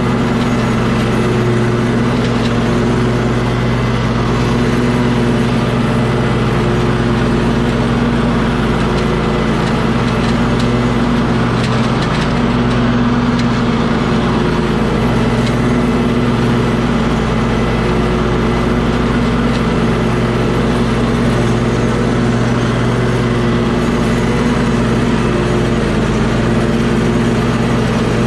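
An engine running steadily at an even speed throughout, with no revving or change in pitch.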